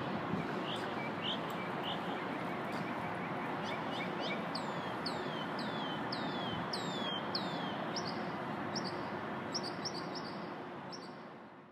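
Birds chirping in a string of quick falling whistles over steady city background noise, all fading out near the end.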